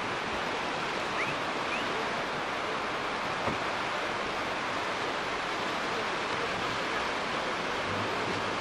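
Steady wash of surf breaking on a sandy beach, an even hiss with no pauses.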